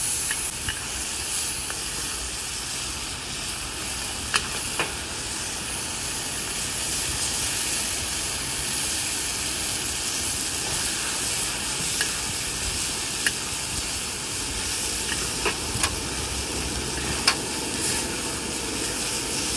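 Squid in sauce sizzling in a wok as it is stir-fried, a steady hiss, with a metal spatula clinking against the wok a few times.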